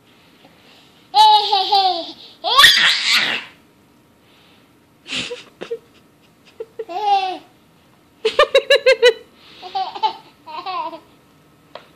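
Several bursts of high-pitched, childlike laughter, including a quick run of short 'ha' pulses about eight seconds in.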